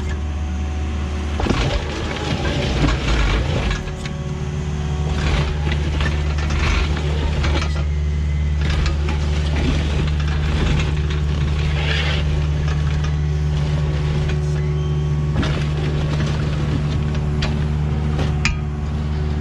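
Excavator's diesel engine running steadily under load while it digs, with irregular scrapes and knocks from the bucket working the dirt.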